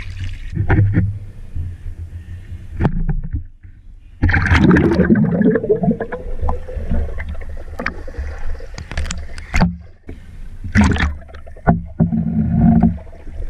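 Pool water sloshing and splashing right against a waterproof camera as it dips in and out of the water, with muffled underwater rumbling in between. The surges come and go irregularly, strongest from about four seconds in.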